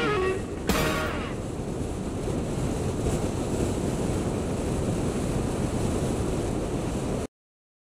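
Wind rushing over the microphone of a camera mounted on a moving motorcycle, with road and engine noise underneath, steady until it cuts off suddenly about seven seconds in.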